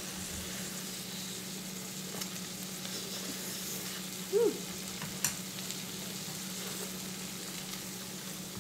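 Marinated beef sizzling on an electric tabletop grill: a steady frying hiss, with one sharp click about five seconds in.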